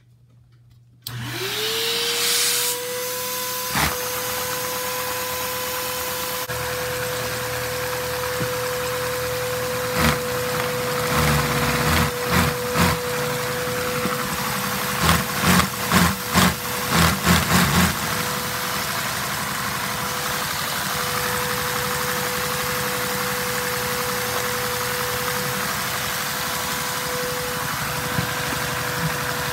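Vacuum cleaner switched on about a second in, its motor whine rising quickly to a steady pitch and running on, supplying suction to drive a Lego vacuum engine. A run of irregular knocks and clatter comes between about ten and eighteen seconds in.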